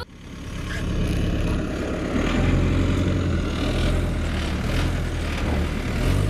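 A vehicle engine running steadily, fading in over the first second.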